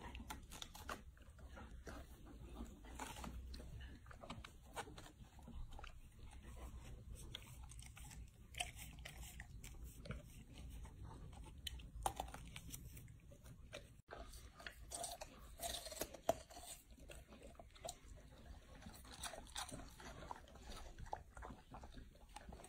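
A golden retriever biting and chewing a raw peeled bamboo shoot, then a whole raw root vegetable, with irregular wet crunches as the fibrous flesh breaks off.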